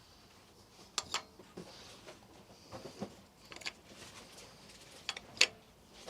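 Scattered metallic clicks and knocks of hand tools and engine parts being handled during work on an engine, the loudest near the end.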